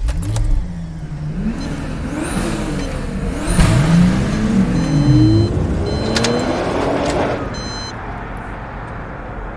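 Several cars driving past at speed, their engine notes rising and falling as they approach and pass. The loudest pass comes about four seconds in, and the sound fades away toward the end.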